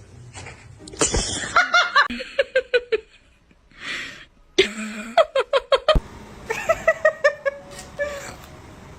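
People laughing in runs of short bursts, with a brief hiss about four seconds in.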